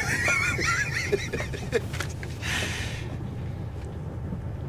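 Steady low rumble of a moving train carriage, with a man's short wavering laugh in the first second and a half.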